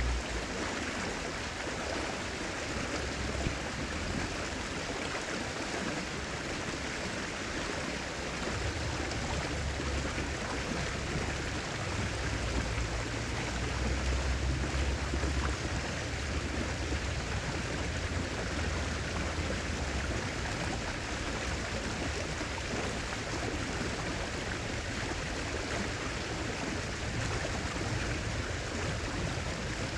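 River water flowing, a steady rushing noise, with a low rumble coming and going underneath, strongest around the middle.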